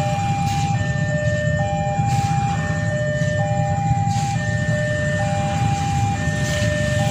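Railway level-crossing warning alarm sounding a repeating two-tone signal, a higher tone then a lower one, the cycle coming round about every two seconds, over a steady low rumble.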